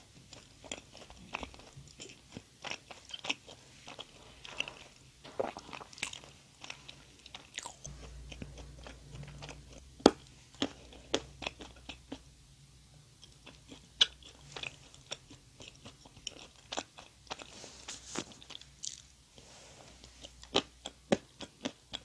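Close-miked chewing of a mouthful of doughnut, with many short, sharp, wet mouth clicks. The sharpest click comes about halfway through.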